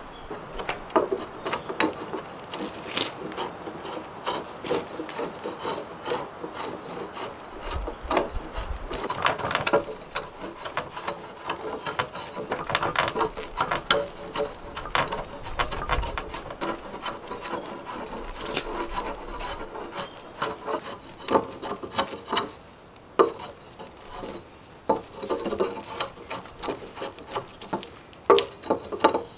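Drawknife scraping and peeling bark from a log in repeated, irregular pulling strokes, with cracking bark and a few dull thumps.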